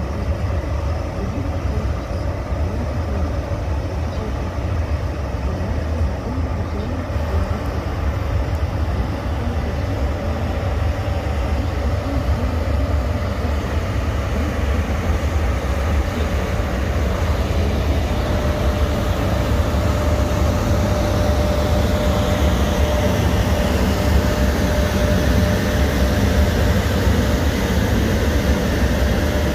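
EP1 electric locomotive pulling a passenger train away from the platform: a steady low rumble and running noise that grows louder as it comes closer. Over the last third a steady hum joins in, with a whine rising in pitch as it gathers speed.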